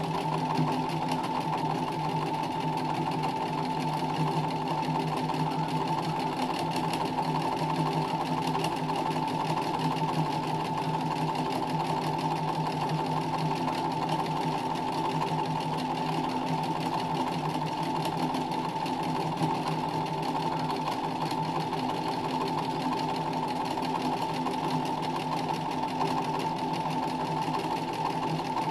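Domestic sewing machine stitching free-motion embroidery, its needle running steadily and without pause through hooped linen under a free-motion foot.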